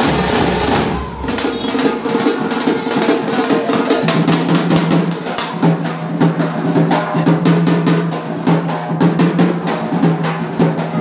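A street drum band beating large bass drums and smaller side drums with sticks in a fast, dense rhythm. A steady held note runs underneath from about a second in and steps down to a lower pitch about four seconds in.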